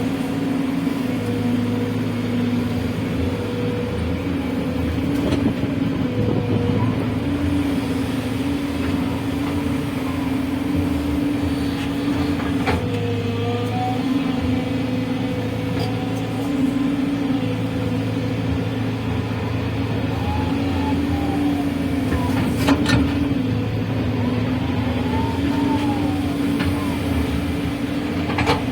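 JCB 3DX backhoe loader's diesel engine running as the machine works, its engine note stepping up and down every few seconds as the load comes on and off. A couple of sharp knocks, one about halfway through and one near the end.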